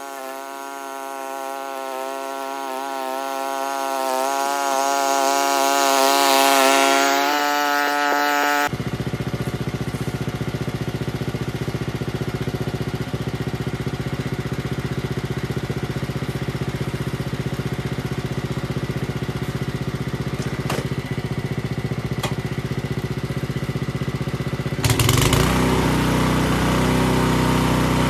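Honda self-propelled mower's small engine running while cutting grass, its pitch wavering with the load and growing louder as it comes closer. After an abrupt change it runs steadily at a lower pitch, and about three seconds before the end it gets louder and fuller.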